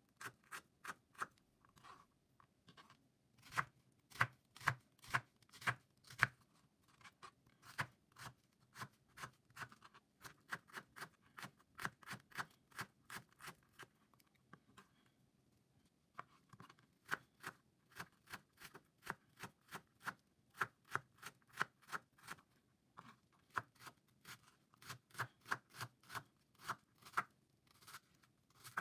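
Kitchen knife finely chopping onion on a plastic cutting board: quick, even knocks of the blade on the board, about three a second, with a short pause about halfway through.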